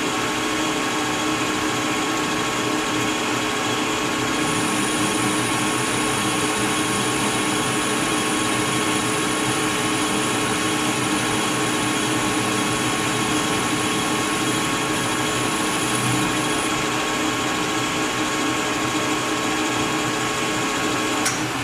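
Metal lathe running with a Shilen rifle barrel spinning in the chuck while a carbide insert takes a light turning pass of about 20 thousandths on the muzzle end: a steady machine hum with a few steady tones. A higher whine comes in about four seconds in and stops at about seventeen seconds.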